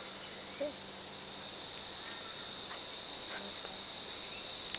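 Steady high-pitched drone of insects in the summer heat, with faint voices in the distance.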